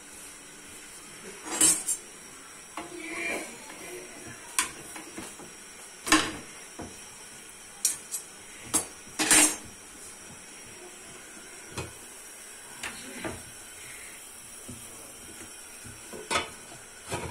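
Metal cookware and utensils clattering on a gas stove: about a dozen short, separate clinks and knocks at irregular intervals, the loudest near the start, about a third of the way in, and around the middle. Near the end an aluminium pot lid is handled with a knock.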